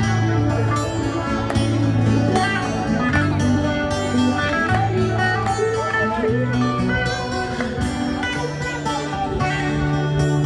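Acoustic guitar music: strummed chords over held bass notes that change every second or two.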